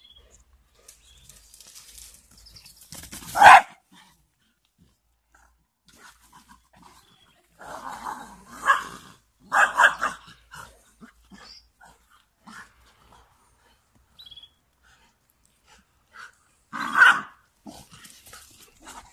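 Dogs barking at play: one loud bark about three seconds in, a quick run of several barks around the middle, and another loud bark near the end.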